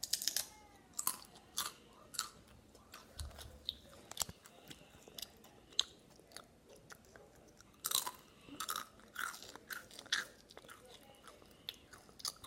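Chips being bitten and chewed: irregular crisp crunches, loudest just after the start and again around eight seconds in.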